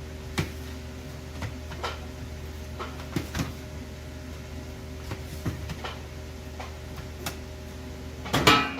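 Kitchen work sounds: scattered sharp knocks and clicks of utensils and containers over a steady machine hum, with a louder clatter near the end.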